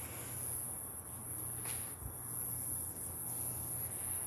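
Crickets chirring steadily in a high, even band, over a low steady hum. A faint tick comes about a second and a half in.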